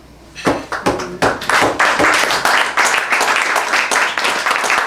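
Audience applauding: a few separate claps start about half a second in, then build within a second into steady, dense clapping.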